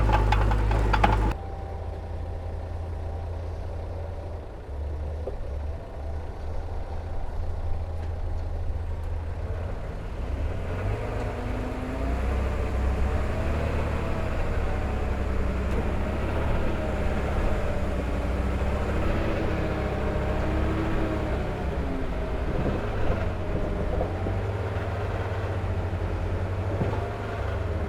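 Heavy diesel engine of earthmoving machinery running, a low steady rumble with a wavering whine that rises and falls from about ten seconds in. A louder, clattering stretch in the first second cuts off abruptly.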